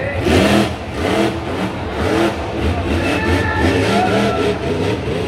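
Monster truck engine revving hard, its pitch rising and falling in quick throttle bursts as the truck drives around the dirt track.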